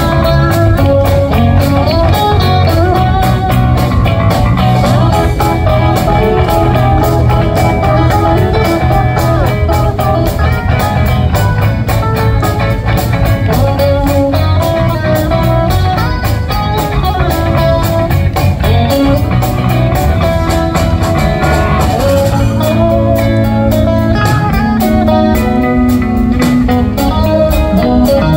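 Live band playing an instrumental, blues-flavoured passage: an electric guitar carries the lead line over bass guitar and a drum kit keeping a steady beat.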